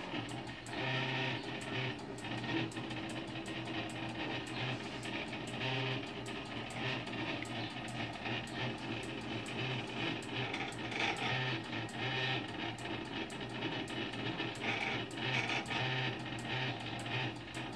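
Stepper motors of a homemade belt-driven laser engraver whining and buzzing as the laser head rasters back and forth, the tones switching pitch every second or so with each change of direction.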